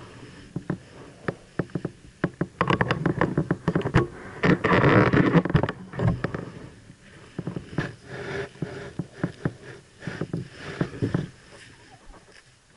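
Irregular knocks, scrapes and rustling from a gloved hand handling the action camera, loudest about four to six seconds in.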